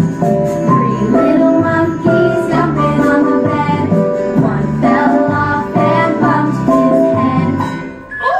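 Upbeat children's song music: a bouncy bass line under a simple melody. A rising whistle-like glide starts right at the end.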